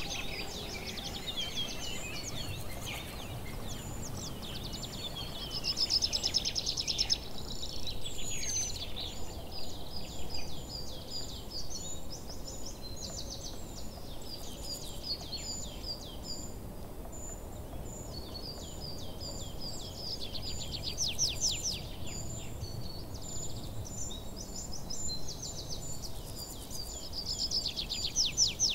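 Many birds singing and calling together: a dense mix of quick chirps and rapid trills, over a steady low background rumble. The songs grow louder in bunches a few times.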